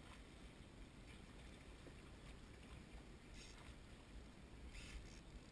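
Near silence: a faint steady hiss and low rumble, with a few soft brief noises.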